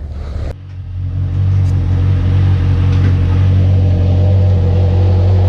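Honda CBR650F's inline-four engine idling, coming in about half a second in and then running at a steady, even low note.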